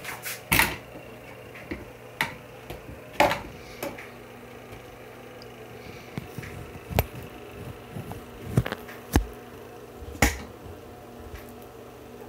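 Handling noise: about half a dozen sharp knocks and bumps at irregular intervals, over a steady low hum.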